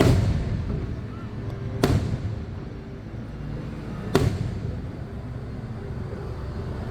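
Three firework shells bursting overhead, sharp booms about two seconds apart, each with a short echoing tail.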